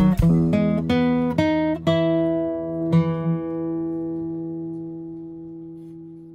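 Acoustic guitar music: a quick run of plucked notes, then a last note struck about three seconds in that rings out and slowly fades away.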